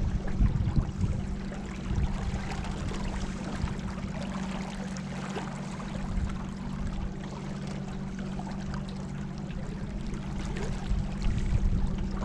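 River water splashing and trickling around a kayak, with irregular splashes over a steady low hum.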